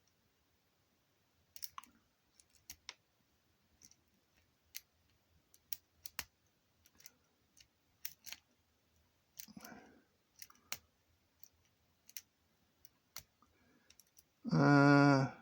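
Irregular small metal clicks and ticks of a lock pick and tension wrench working the pins inside a practice lock. Near the end a man's short hummed 'hmm' is the loudest sound.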